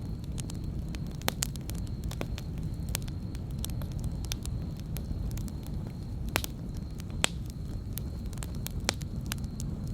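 Wood campfire burning: the logs crackle and pop at irregular moments, a few pops sharper than the rest, over a low steady rumble of the fire.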